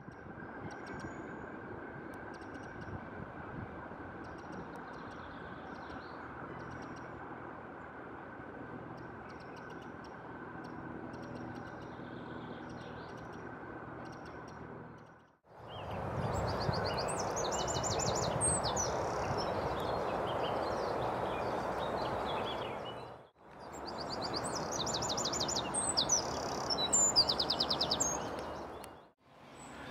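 Eurasian wren singing: loud, fast bursts of high, rapid trills and notes, strongest in the second half and loudest near the end, over a steady background hiss. The first half holds only faint, scattered high notes.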